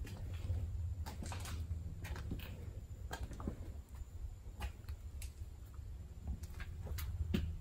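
Steady low hum of a shop interior with scattered light clicks and taps, irregular and a few each second.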